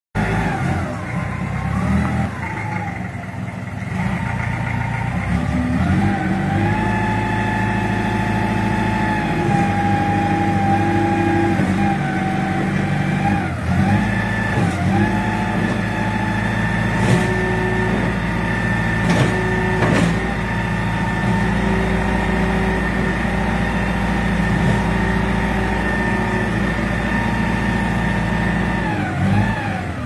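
Small wheel loader's diesel engine running under throttle while the front bucket is worked. Its pitch sags and recovers briefly a few times, and a few sharp knocks sound around the middle.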